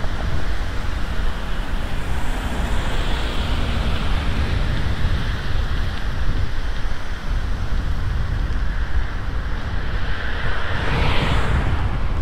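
Wind buffeting the microphone of a moving bicycle, a steady low rumble under a hiss, with a louder swell near the end.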